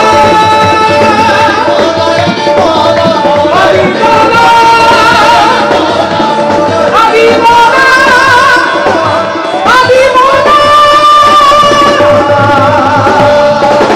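Qawwali music: a male voice singing long, wavering held notes over harmonium and tabla.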